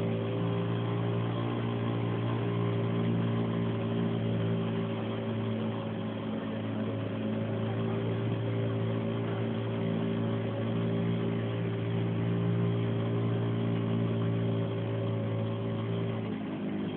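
Boat engine running steadily at cruising speed, with a steady drone and a rush of noise over it. The engine note drops slightly near the end.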